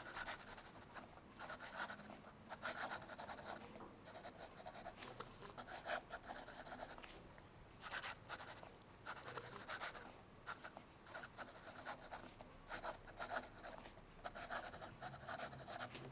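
A Platinum 3776 fountain pen's 14-karat gold fine nib writing cursive on grid notebook paper: a faint, irregular run of scratchy strokes with short pauses between letters and words. The nib has a lot of feedback, sounding a little scratchy without actually scratching.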